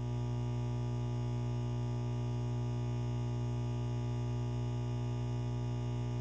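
Steady ambient drone music: a low hum with many sustained tones stacked above it, unchanging throughout.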